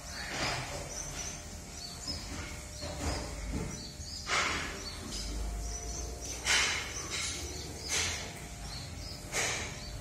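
Corded electric hair clippers running over a comb, giving a short cutting sweep about six times as the blades take hair off. Small birds chirp in the background.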